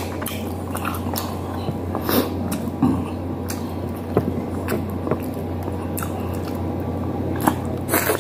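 A person eating chicken by hand close to the microphone: chewing, with irregular wet smacks and clicks of the mouth and fingers.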